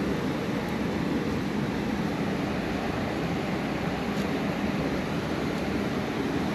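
Steady rushing of water pouring through a lake spillway, an even noise with no breaks.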